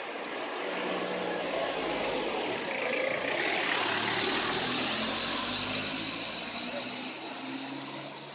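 A passing vehicle's noise swells to a peak about halfway through and then fades away.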